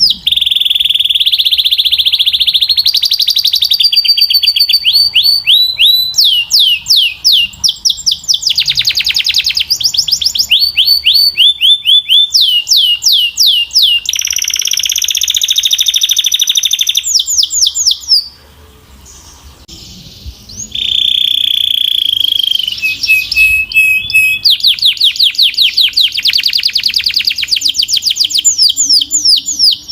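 Belgian canary singing loudly: fast trills of repeated downward-sweeping notes alternating with held whistled tones. The song breaks off for about two seconds a little past the middle, then resumes with rapid trills.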